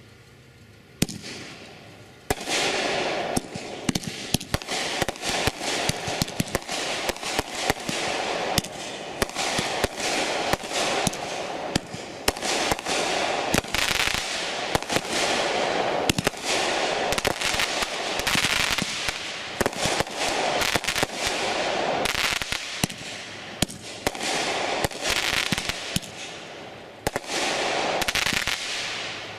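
A World Class Fireworks 'Bent Rail' 47-shot 500-gram cake firing. From about two seconds in there is a rapid, unbroken string of shot bangs and aerial breaks with crackling.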